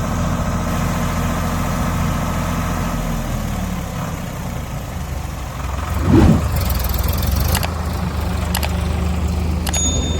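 Heavy diesel engine idling steadily. Its note drops lower about a third of the way in, and a brief loud surge comes a little past halfway before it settles back to a steady idle.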